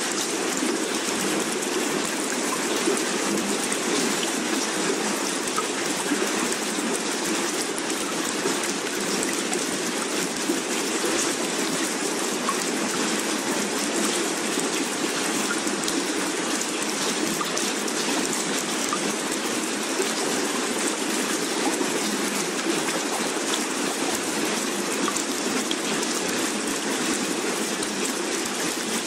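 Steady rushing water ambience, an even hiss without distinct splashes or pauses.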